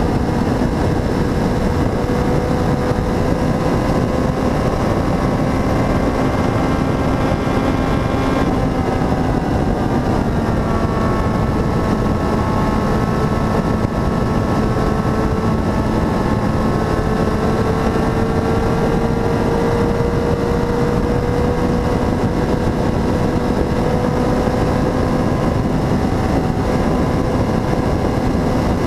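Motorcycle engine running at road speed under heavy wind rush over the microphone. The engine note dips about eight seconds in, then climbs slowly as the bike picks up speed.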